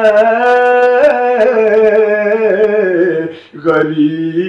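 A man singing an Urdu naat, drawing out long ornamented notes on a held vowel. The voice breaks off briefly about three and a half seconds in, then starts a new phrase lower in pitch.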